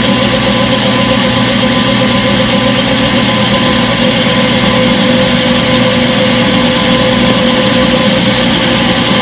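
Front-load washing machine running: a steady motor hum with a constant whine, no breaks or changes.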